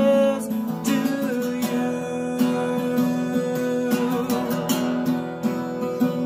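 Acoustic guitar strummed in a steady rhythm, with a man singing over it, holding a note at the start.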